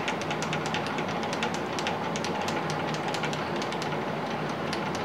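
South Bend 13-inch lathe's cross slide being cranked back by hand on its feed screw, with a quick, even run of light clicks, about five or six a second.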